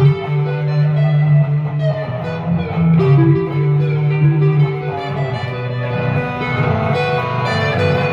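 Two electric guitars played together through amplifiers, with long sustained notes under shorter melodic lines.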